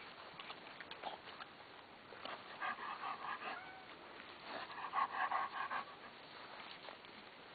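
Dog breathing in quick, rapid puffs in two bursts of about a second each, the first about two and a half seconds in and the second about four and a half seconds in.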